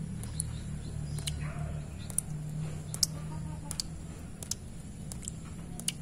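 Water drops falling into a shallow pool over stones, landing as sharp, irregular plinks, the clearest about two and three seconds in, over a steady low hum.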